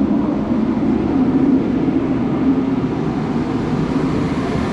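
Torpedo-style forced-air heater running, a loud, steady blowing with a low hum.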